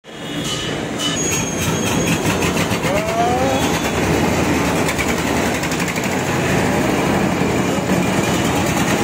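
Single-cylinder diesel engine of a paddy threshing machine running steadily, with the clatter of its belt drive and gearbox.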